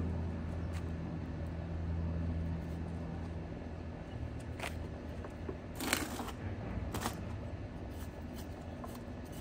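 Low, steady engine hum of traffic, loudest for the first three seconds and then weaker. About halfway through come a few short rustles and crackles as gloved hands work flowers and soil into a pot.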